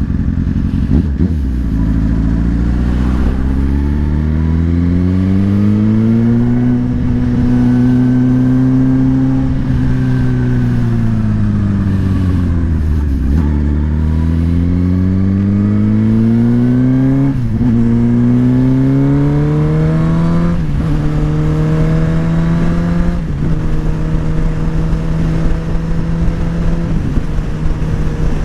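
Motorcycle engine pulling up through the gears: its pitch climbs, eases off and falls, then climbs again with two quick drops at upshifts before settling into a steady cruise near the end.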